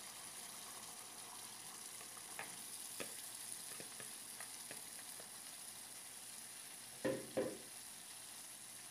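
Yogurt-and-tomato masala sizzling steadily in a pan as cut eggplant pieces are tipped in from a bowl, with scattered light clicks and a louder double knock about seven seconds in.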